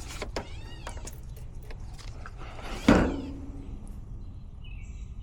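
A cat meowing several times, with a few light clicks and taps. The loudest call comes about three seconds in and falls in pitch before holding low.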